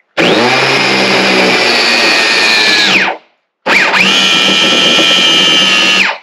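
Angle grinder with a spin-weld adapter spinning a half-inch plastic fitting into a plastic water tank, friction-welding it in. The motor runs with a steady whine for about three seconds and winds down. After a short pause it starts again and runs about two and a half seconds more to press the still-molten fitting down flush.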